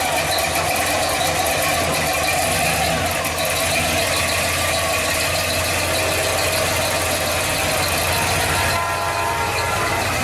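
A 1967–72 Chevrolet C10 pickup's engine idling as the truck rolls slowly past, a steady rumble.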